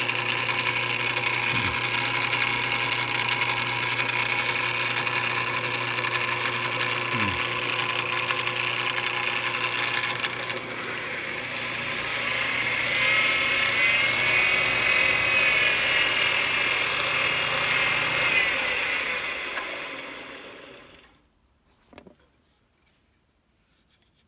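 Electric motor and belt-driven Reeves variable-speed pulley drive of a Jet JWL-1236 wood lathe running with a steady hum and whine. About halfway through, the whine wavers up and down and grows louder. Then the motor is switched off and the drive runs down to a stop. It is being run to track down a rattle, which the owner suspects is a loose washer or, at worst, a motor bearing.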